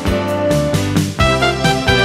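Instrumental background music, with sustained notes over a steady bass line.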